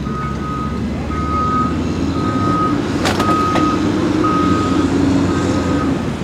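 A vehicle's reversing alarm beeping about once a second, each beep about half a second long, over an engine running at low revs. A sharp knock about three seconds in.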